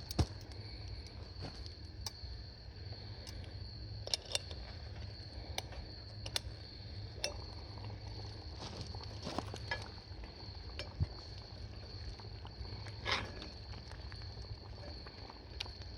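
Scattered clicks, crackles and small metallic clinks from camp cooking over a wood fire in a fire pit, with a steady high-pitched hum underneath.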